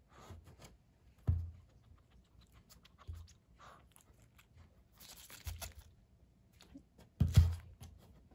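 A crisp leaf of green lettuce rustling and crinkling as it is handled on a wooden table, with a few dull thumps; the loudest come about a second in and near the end.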